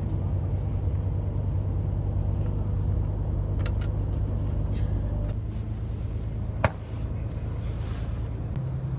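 Tour coach's engine drone heard from inside the cabin while driving, a steady low hum that changes in pitch about halfway through. A single sharp click sounds near the end.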